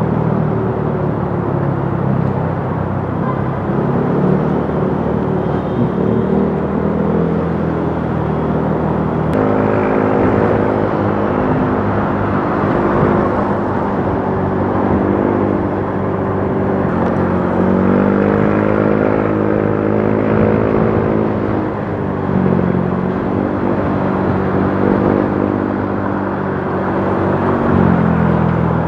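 Motorcycle engine running under way in traffic, its pitch rising and falling over several seconds as the bike speeds up and eases off, over steady wind and road noise.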